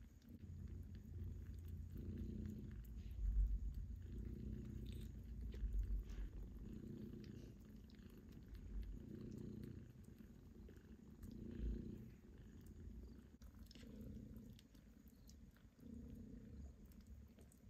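A cat purring close by, a low rumble that swells and fades with each breath about every two seconds, with faint small ticks over it.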